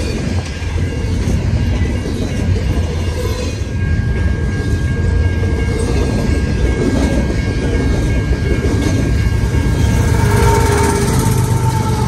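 Double-stack intermodal container well cars of a freight train rolling past at speed: a heavy steady rumble of steel wheels on rail with clickety-clack, and a thin steady wheel squeal for several seconds in the middle. Near the end, the train's GE Evolution-series mid-train DPU locomotive reaches the crossing and its engine sound joins the rumble.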